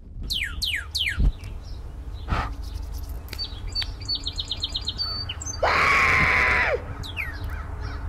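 Cardinal-style bird calls: three quick whistled notes sliding down in pitch, then a rapid run of about eight high chips, and about six seconds in a loud, harsh call lasting about a second.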